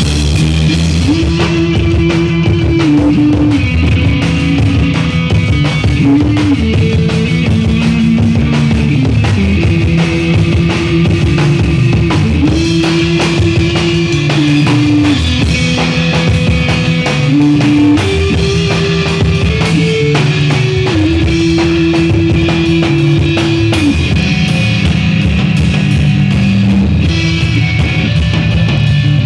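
Rock band playing live: electric guitars through amplifiers over a drum kit, with a melody of long held notes on top and no singing.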